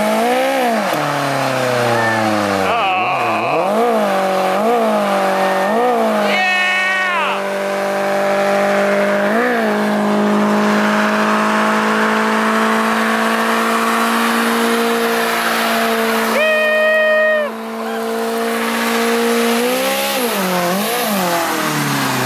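First-generation Mazda Miata's four-cylinder engine revving up and down with its rear tyres spinning and squealing in a smoky burnout, then held at steady high revs for about twelve seconds of continuous wheelspin, with short sharp tyre squeals twice; near the end the revs bounce up and down again.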